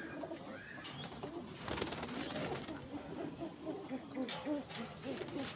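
Many domestic pigeons cooing, with low, overlapping coos repeating throughout. There are brief rustling bursts about two and four seconds in as birds are caught by hand in the cage.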